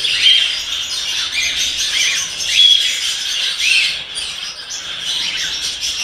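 Many caged parrots in a breeding room chirping and squawking at once, the short calls overlapping into a constant chatter, with a few clearer chirps rising above it.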